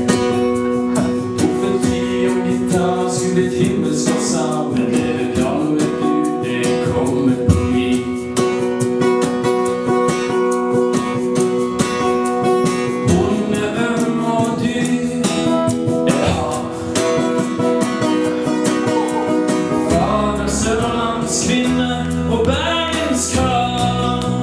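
Live song in Norwegian: a man singing into a microphone over a strummed acoustic guitar, with an electric bass playing low notes that come in strongly in the last few seconds.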